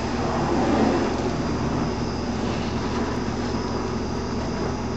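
Aerosol spray paint can hissing as paint is sprayed onto an aluminum boat hull, over a steady low mechanical hum.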